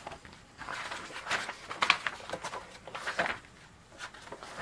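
Paper cover and pages of a picture book rustling as the book is opened and handled, in a string of short rustles.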